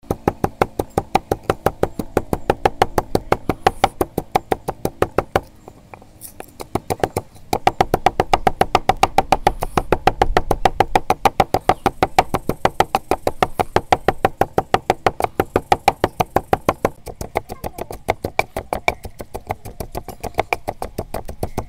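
Background music with a fast, steady beat of about five sharp clicks a second over sustained tones. It drops quieter for a second or two about six seconds in.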